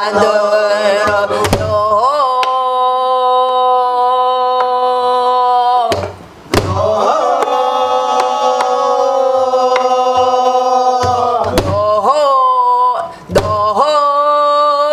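Guueum, Korean wordless vocal mouth-music, sung by a woman in long held notes with two short breaks, over a few stick strikes on a buk barrel drum.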